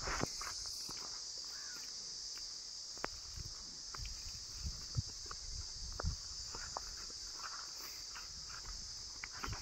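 Steady high insect chorus, with scattered faint thuds and clicks of water buffalo hooves on dry ploughed soil.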